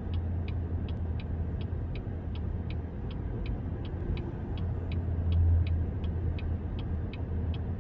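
A steady low rumble of a vehicle, with a light, even ticking about three times a second.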